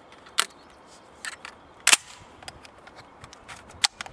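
Baikal MP-153 12-gauge semi-automatic shotgun being loaded by hand: a few sharp, irregular metallic clicks as shells are pushed into the tube magazine, the loudest about two seconds in.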